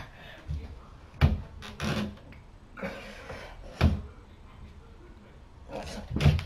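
About five heavy thumps and knocks from a doorway pull-up bar shifting against its door frame and feet landing on the floor during pull-ups, with some breathing between.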